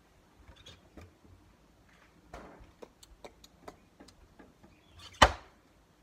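Scattered light clicks and taps, then one sharp, much louder knock about five seconds in.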